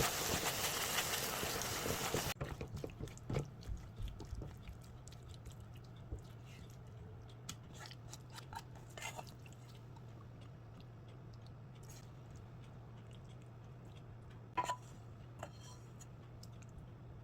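A steady rushing noise that stops abruptly about two seconds in, then scattered small clicks and taps of food and utensil handling over a low steady hum.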